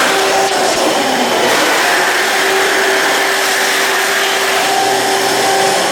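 A loud, steady mechanical whir with a humming tone running through it, easing off near the end.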